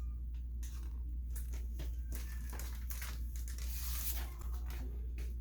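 Paper rustling and crinkling as the pages of a picture book are handled and turned, with scattered small clicks. A steady low hum lies underneath.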